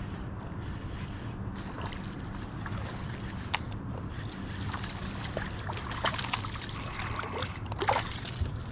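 Water lapping and trickling around a kayak hull over a steady low hum, with a few brief sharp sounds in the last few seconds.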